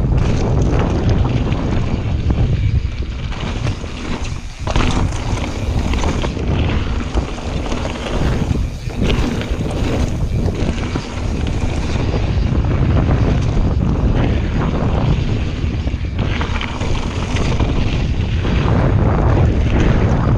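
Wind rushing over the microphone of a chest-mounted action camera as a full-suspension mountain bike (YT Jeffsy) runs fast down a gravel trail. Tyre noise on the loose surface is mixed with frequent knocks and rattles from the bike over bumps.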